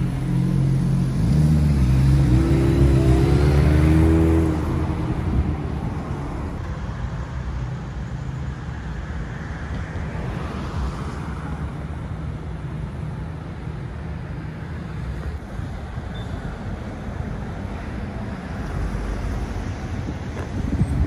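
A motor vehicle's engine running close by, its pitch rising as it accelerates, then fading after about four seconds into steady street traffic noise.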